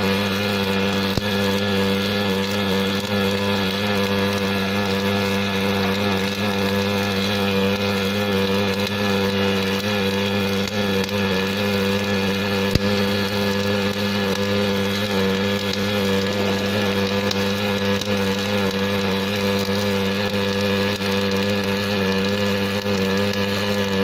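Automatic hydraulic-cylinder welding machine running: a steady buzzing hum over a noisy haze, unchanging throughout, with one sharp click about 13 seconds in.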